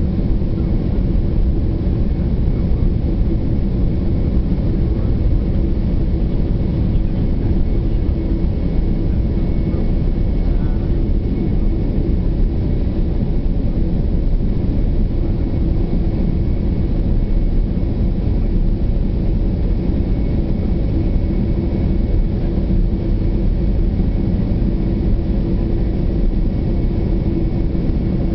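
Boeing 767 jet engines and airflow heard from inside the passenger cabin while the airliner taxis: a steady low rumble with a faint constant hum, unchanging throughout.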